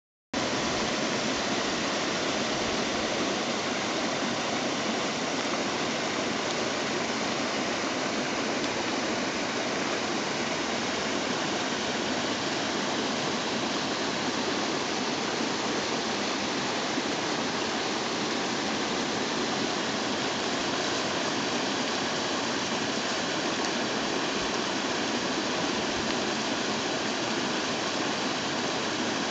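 Creek water rushing steadily over a small cascade, an even, unchanging rush of water.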